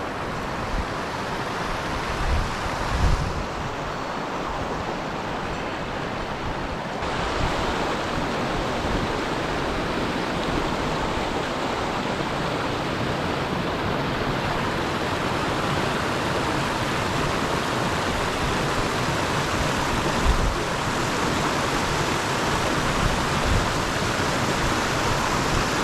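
Mountain torrent running, a steady rush of water that fills out and grows a little louder about seven seconds in, with a few low thumps.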